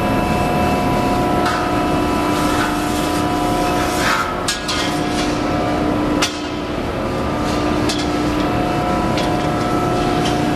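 Steady factory machinery hum with a few held tones, broken by scattered metal clanks and knocks; the loudest come about four to five seconds in, with a sharp one just after six seconds.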